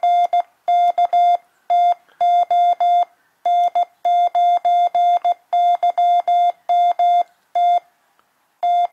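Morse code sidetone from a YouKits HB-1B QRP CW transceiver keyed by hand with a paddle: a steady 700 Hz beep switched on and off in a run of short dots and longer dashes, with short pauses between characters.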